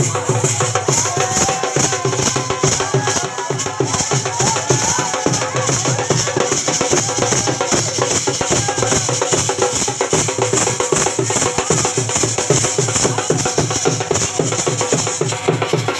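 Dhol, a large two-headed barrel drum, beaten by hand and stick in a fast, steady dance rhythm, with crowd voices over it.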